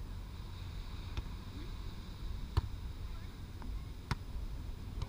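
Three sharp slaps of hands striking a volleyball, about a second and a half apart, over a steady low rumble of wind.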